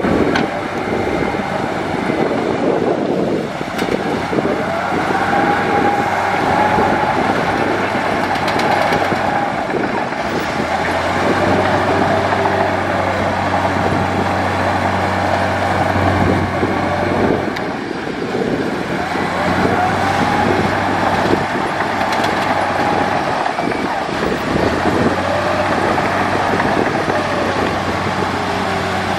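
Komatsu D58E bulldozer's diesel engine running steadily while it works, its hum deepening and strengthening about a third of the way in, with several drawn-out squeals that rise and fall in pitch.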